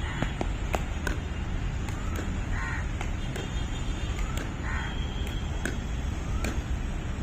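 Pickleball paddles striking a plastic ball in a quick volley exchange: sharp, irregular clacks, one to three a second. A bird calls about three times in the background.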